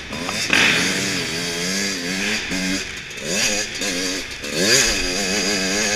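Motocross bike engine revving up and down as the rider accelerates along a dirt track, its pitch rising and falling repeatedly with the throttle. Wind hiss on the helmet camera runs underneath.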